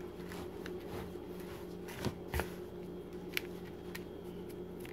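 A hand mixing a dry flour mix in a plastic bowl: soft rustling and scraping, with a few light taps in the middle. A steady low hum runs underneath.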